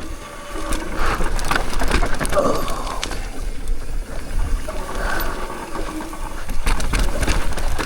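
Downhill mountain bike ridden over a loose dirt trail: wind buffeting the microphone, with the tyres and frame rattling and clicking over bumps and short brake squeals.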